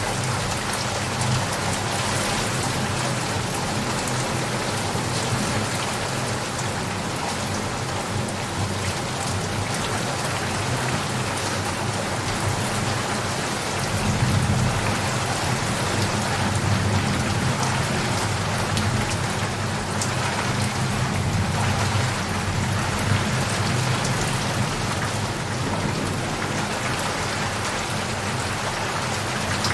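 Steady rain falling on a surface, with a low rumble of thunder swelling about halfway through and fading over a few seconds.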